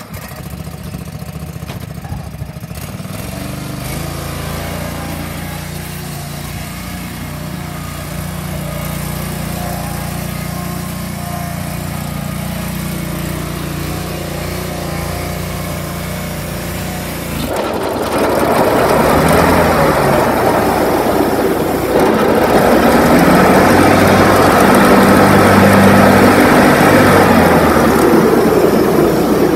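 John Deere 445 lawn tractor's liquid-cooled Kawasaki V-twin engine running at a steady idle. About two-thirds of the way through it suddenly gets much louder, with its pitch rising and falling.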